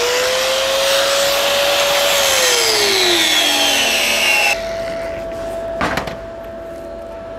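Angle grinder spinning up and grinding the weld joint on a steel pipe, its whine rising, holding, then sagging before the grinding cuts off sharply about four and a half seconds in. A short knock follows about a second later.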